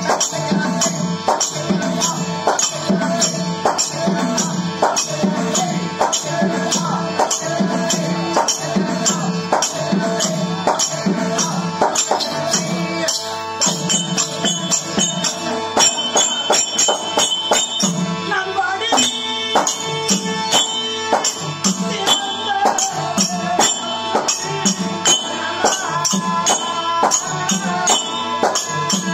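Live Therukoothu drama music: hand drums beaten in a steady rhythm, with jingling metallic percussion on the beats and a sustained melody line over them.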